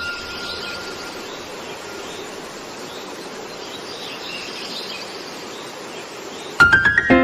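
Opening of a background music track: a fading chime tone over a steady bed of outdoor-style ambience with faint chirping. Near the end a quick rising run of plucked notes leads into the music.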